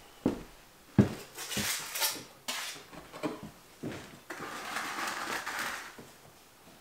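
Stonework with mortar: a series of sharp knocks and clinks of stone and tools, then a scraping sound lasting about a second and a half, starting just after four seconds in.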